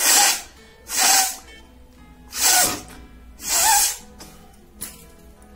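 A woman sneezing four times in quick succession over about four seconds, each sneeze a short, loud burst of breath. Faint background music plays underneath.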